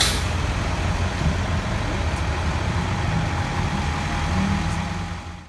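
A vehicle engine idling with a steady low rumble, which cuts off suddenly at the end.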